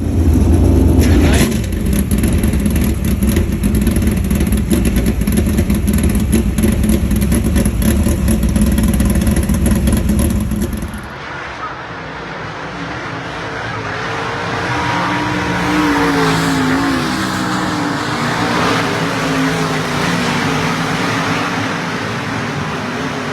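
Dirt modified race car engines running loud, with a deep rumble. About eleven seconds in the sound cuts abruptly to engines whose pitch rises and falls as cars go past.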